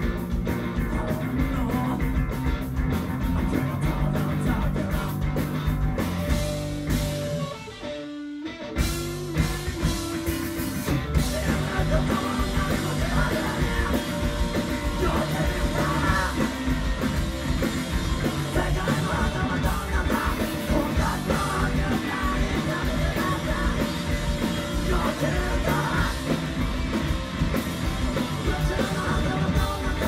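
Three-piece rock band playing live: electric guitar, bass guitar and drums with a singer. The band stops briefly about eight seconds in, then comes back in at full volume.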